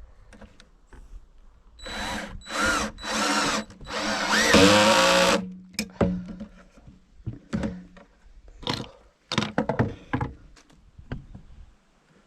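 Power drill run in three short bursts and then one longer run whose pitch bends as it loads and eases. This is followed by a scattering of knocks and clatter.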